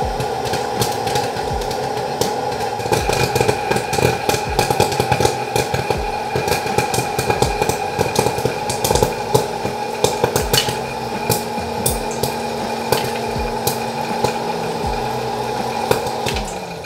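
Mondial Popflix oil-free hot-air popcorn maker running: its fan motor hums steadily while kernels pop in many quick, irregular cracks, thickening from about three seconds in. Near the end the motor winds down and stops.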